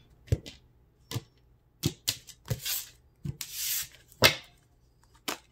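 Tarot cards being handled over a wooden table: a series of sharp taps, about one a second, with two longer papery swishes in the middle.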